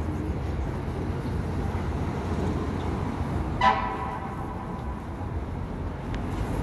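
Steady rumble of city street traffic with one short vehicle horn honk about three and a half seconds in.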